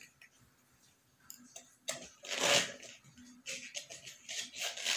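Plastic bottle crinkling and rustling in the hands in several short bursts, the loudest about two and a half seconds in.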